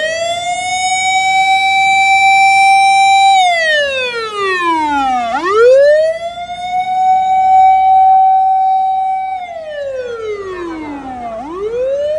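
Emergency vehicle siren wailing loudly: each cycle the tone sweeps quickly up to a high note, holds it for about three seconds, then slides slowly down. The cycle repeats about every six seconds, with fresh rises about five seconds in and again near the end.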